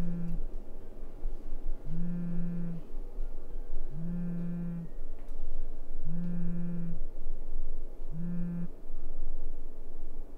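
Mobile phone vibrating with an incoming call, a low buzz in bursts just under a second long, five times about two seconds apart, the last one cut short.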